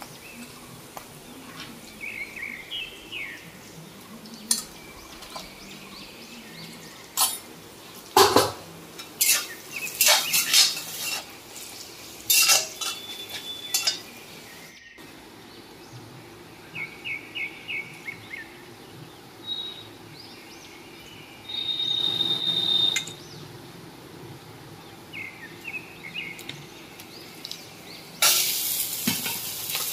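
A metal spatula scrapes and knocks against a kadai while stirring onions and spices frying in oil, in scattered strokes. Near the end, a loud sizzle starts as chopped Malabar spinach and vegetables go into the hot oil.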